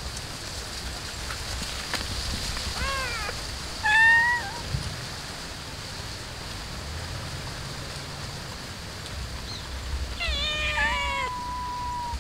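Several domestic cats meowing for food: one meow about three seconds in, a louder one just after, then a cluster of overlapping meows near the end, the last one drawn out.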